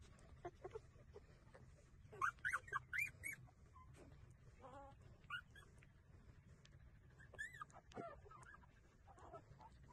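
Newborn puppies squeaking and whimpering while they nurse: short high-pitched squeaks in clusters, the loudest quick run about two seconds in, with more near the middle and the end. Under them runs a faint low hum.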